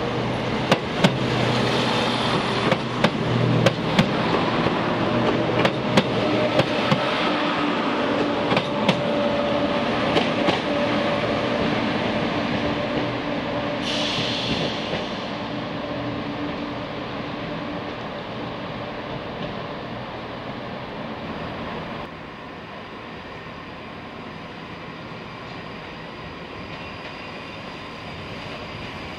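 First ScotRail Class 170 Turbostar diesel multiple unit running past and drawing away, its wheels clicking over rail joints with a steady engine and transmission hum that fades as it goes. A short hiss of air comes about fourteen seconds in.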